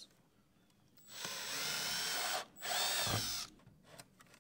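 Power drill with a 5 mm bit opening up a hole in a plastic VFD housing, its motor whining in two short runs, about a second in and again near three seconds.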